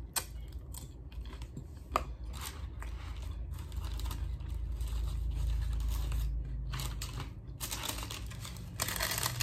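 Chewing crunchy nacho chips, with scattered crisp crunches, followed near the end by a burst of paper rustling.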